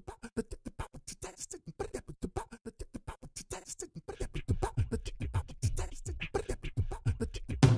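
Intro music made of fast, evenly spaced percussive hits, many carrying a short pitched note, growing louder about halfway through.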